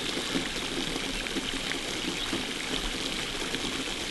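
Small pond fountain splashing steadily into the water.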